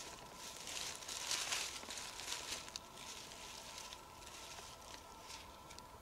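Dry fallen leaves rustling and crackling, with scattered small clicks, most busily in the first half and thinning out after.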